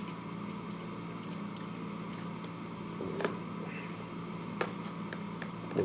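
Someone eating, with a few short clicks and soft mouth sounds of chewing, over a steady background hum in a small room.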